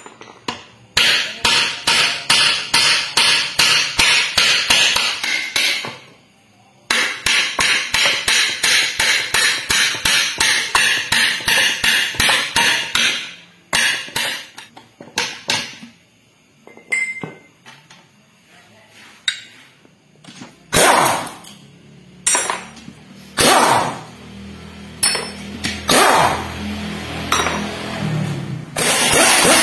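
Metal blows on a Toyota Avanza transmission being taken apart: two quick runs of about five blows a second, a short gap between them, then slower, scattered single knocks.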